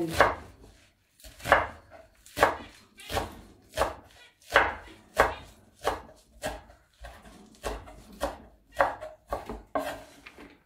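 A chef's knife chopping leafy greens on a wooden cutting board, a steady run of sharp knocks at about one and a half strokes a second.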